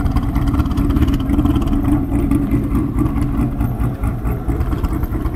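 Pontiac G8 GT's 403-cubic-inch V8, with a custom cam, long-tube headers and Corsa mufflers, idling with a steady exhaust rumble.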